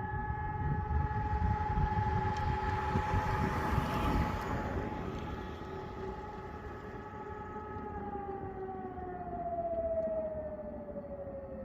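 Civil-defence sirens, a Hörmann ECN 600 and Rosenbauer FS 8s, sounding a steady test tone together, with a fainter lower tone beneath. About 8 s in, the loudest tone begins to wind down, sliding lower in pitch.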